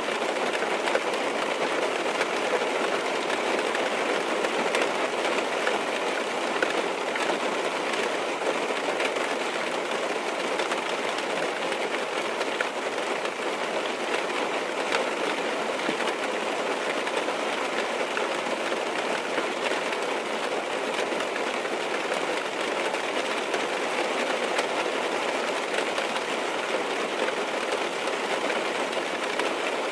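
Steady rain falling on a car's roof and windows, heard from inside the car: an even, dense hiss of drops with faint scattered ticks.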